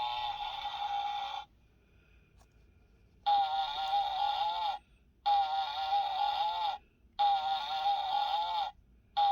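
Electronic fart machine playing fart sounds through its small speaker. A long buzzy tone cuts off about a second and a half in. After a pause come three similar blasts of about a second and a half each, evenly spaced, each ending in a wobbling drop in pitch.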